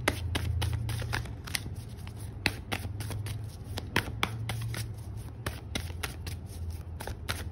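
A deck of tarot cards being shuffled by hand: irregular sharp slaps and flicks of the cards against each other, over a steady low hum.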